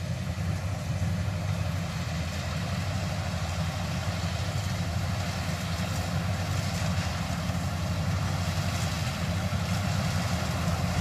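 Kubota DC70 combine harvester's diesel engine running steadily, a constant low drone.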